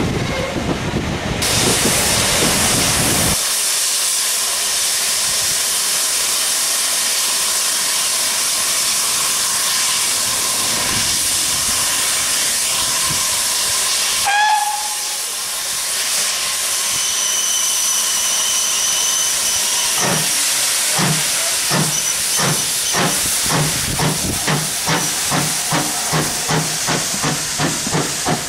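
Port Talbot Railway 0-6-0 saddle tank No. 813 blowing off steam with a loud, steady hiss, with steam escaping around its cylinders. About two-thirds of the way in its exhaust beats start, about two a second and quickening, as it pulls away with its train.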